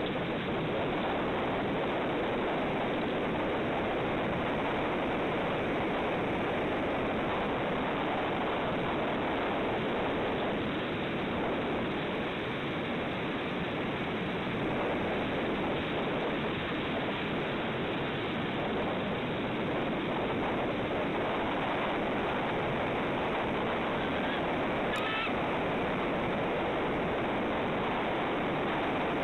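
Steady rushing noise of ocean surf and wind, even in level throughout.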